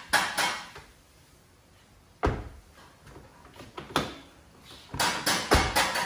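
Rear door of a Chevrolet Spark shutting with a solid thud about two seconds in. Near the end it is worked again: a quick run of latch clicks and knocks and another heavy thud.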